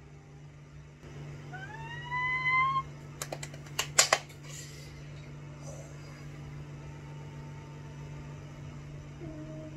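Steady low hum of a wall-mounted air conditioner running. About two seconds in a woman gives a short rising squeal, and a few sharp clicks follow near the four-second mark.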